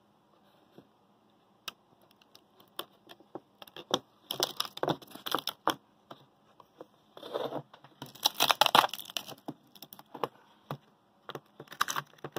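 Plastic ice cube tray being twisted to free the cubes: scattered clicks, then three bursts of crackling and cracking as the ice pops loose.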